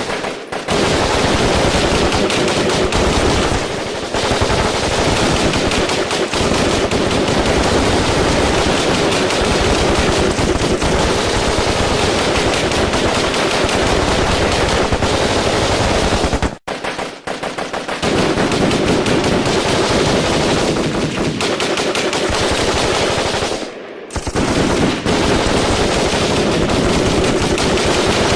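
Gunfire in a firefight: automatic weapons firing in long, near-continuous bursts, with short breaks in the shooting about 17 seconds in and about 24 seconds in.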